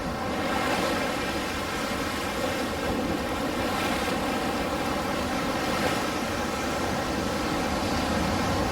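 Ocean waves: a continuous wash of surf, fairly steady in level.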